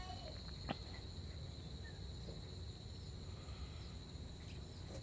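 Insects chirring steadily at a high, even pitch over a low background rumble, with one short click under a second in.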